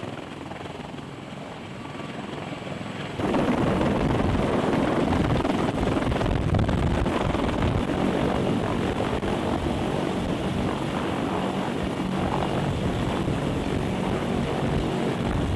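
A CH-53E Super Stallion three-engine heavy-lift helicopter hovering low overhead, its rotor and turbine noise steady and dense. About three seconds in it becomes much louder and closer, heard from directly beneath the hovering helicopter.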